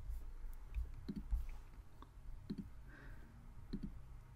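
Computer mouse clicking three times, about a second and a half apart, each click heard as a quick pair, over a faint low hum.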